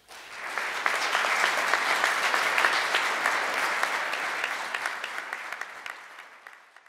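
Audience applauding: many people clapping together, building up within the first second and fading out near the end.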